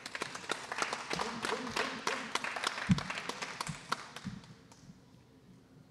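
Scattered applause, many separate hand claps, dying away about four and a half seconds in, with a low thud about three seconds in.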